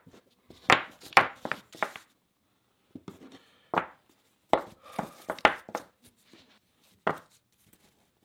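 Small cut wooden segments knocking and clacking against each other and the workbench as they are handled and set in place, in several irregular clusters of sharp knocks.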